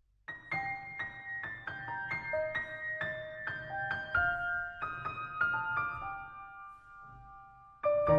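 Soft piano music: a slow run of single notes, each left ringing, fading toward the end, then fuller chords coming in just before it ends.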